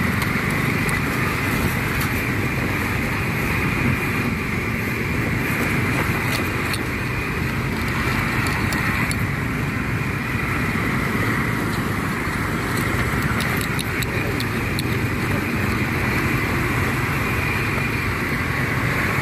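Small motorcycle engine running steadily while riding over a rough dirt road, with occasional light clicks and rattles.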